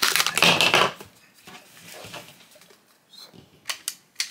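Hard plastic of a small toy cauldron scraping and rattling as its lid is pried off, loud for about the first second. Near the end come a few sharp clicks as the toy's plastic wand taps against the cauldron.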